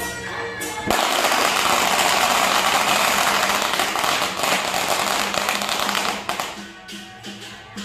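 A string of firecrackers going off as a salute: a dense, rapid crackle that starts suddenly about a second in, runs for about five seconds, then dies away. Music is heard faintly before and after it.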